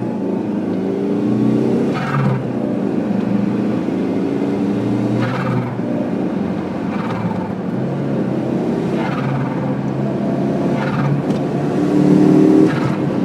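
Turbocharged 2.0-litre four-cylinder of a 1990 Plymouth Laser revved again and again, each throttle lift followed by a short turbo flutter, about every two seconds.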